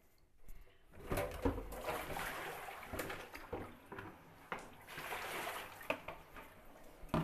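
Handfuls of freshly washed red amaranth greens being lifted out of a bucket of rinse water into a colander by hand, with water splashing and dripping and the wet leaves rustling. It starts about a second in, and a sharp knock comes near the end.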